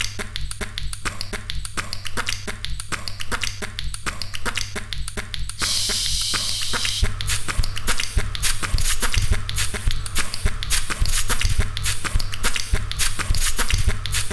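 Homemade rhythmic soundtrack of quick clicks and taps over a steady low hum. About six seconds in comes a burst of spray-can hiss, and the beat is louder from then on.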